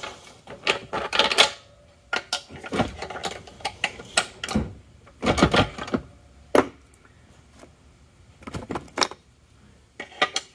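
Metal parts and hand tools clinking, knocking and scraping inside a Turbo 350 (TH350) automatic transmission case as its internals are pulled out. The clicks and knocks come irregularly, some briefly ringing, with a quieter pause a little past the middle.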